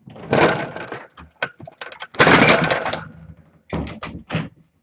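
Two loud bursts of clattering, rustling noise, each lasting about a second, followed near the end by a quick run of sharp knocks.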